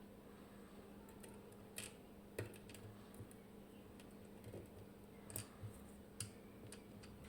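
Scattered light clicks and taps of small metal lock parts being handled, about half a dozen in all, the loudest about two and a half seconds in, over a faint steady hum.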